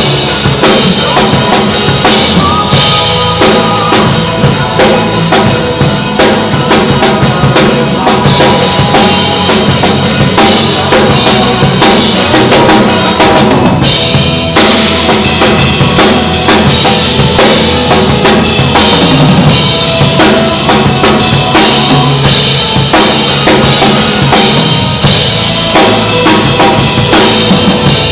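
Drum kit played live over a pop-song backing track: kick drum, snare and cymbals struck in a steady beat. The cymbals drop out for a moment about halfway through, then the beat carries on.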